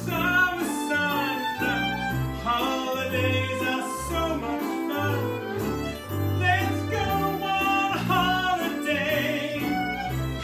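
A man singing a lively song into a microphone, backed by fiddle and banjo, over a line of low bass notes.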